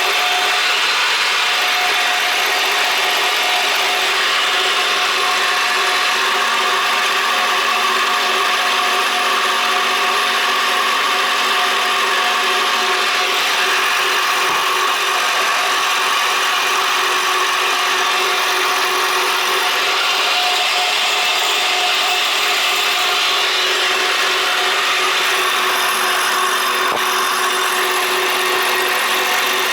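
Metal-cutting machine tool running steadily and taking a cut in steel, a continuous grinding, rubbing cut with a steady hum of several tones.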